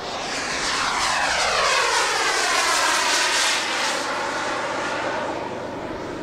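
Four Wren Super Sport micro gas turbines of a giant radio-controlled Vickers VC10 model jet airliner in a low flypast. The jet noise swells to its loudest two to three seconds in as the model passes, then eases as it climbs away.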